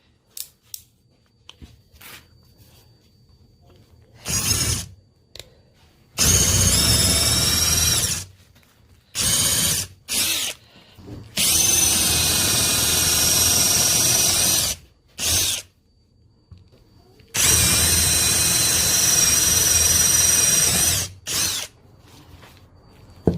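Small brushless cordless drill-driver set to its highest setting and run in a strength test, in repeated trigger bursts. There are three long runs of two to three seconds and several short blips, the motor's whine rising briefly as each one starts.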